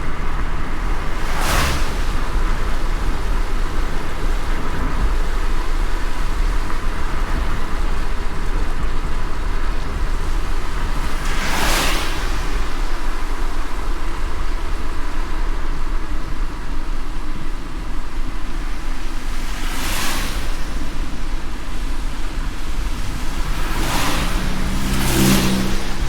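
Car driving in heavy rain: a steady low road rumble under a constant hiss of rain and spray, with a brief whooshing swish a few times at irregular spacing.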